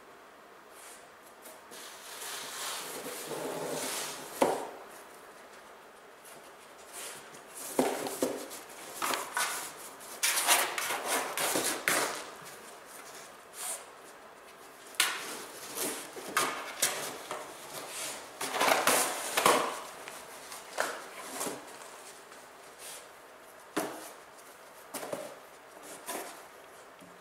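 A puppy nosing and pushing at a cardboard box to get treats out of it: the box rustles and scrapes across the floor in irregular bursts, with sharp knocks now and then as it bumps down.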